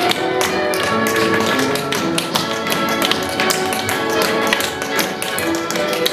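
Several tap dancers' tap shoes clicking rapidly on a wooden parquet dance floor, over holiday music.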